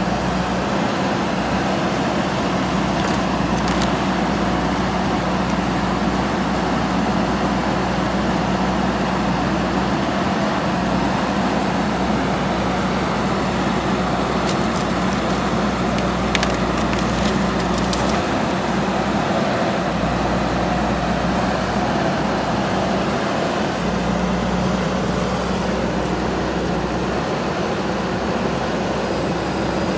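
JCB 3DX Super backhoe loader's diesel engine running steadily under load as the backhoe arm works through a pile of bamboo poles, with a few faint snaps of bamboo.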